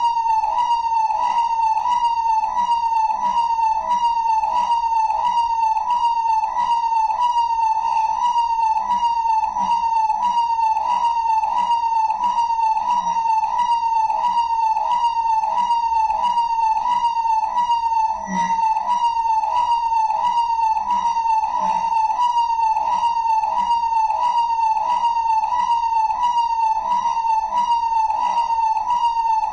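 Electronic siren-type alarm, one piercing tone repeating a quick falling sweep a little under twice a second, without a break.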